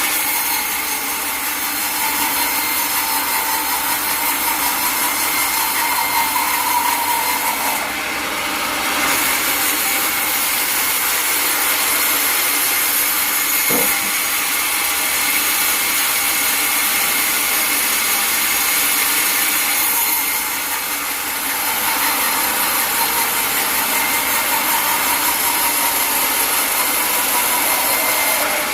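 Sawmill saw running through a log: a steady machine whine over the hiss of the blade cutting wood, easing briefly twice.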